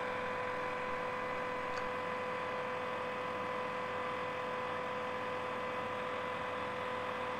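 Hair dryer running steadily, blowing hot air: a constant rushing noise with a steady whine.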